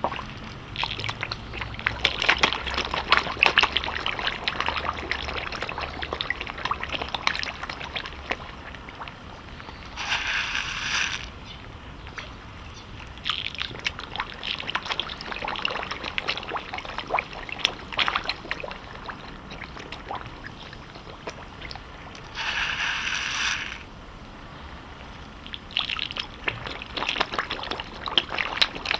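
Carp feeding at the water surface: a constant irregular patter of wet sucking and smacking sounds as their mouths gulp food and water. Twice, about ten seconds in and again near the end, a brief denser rush of splashing.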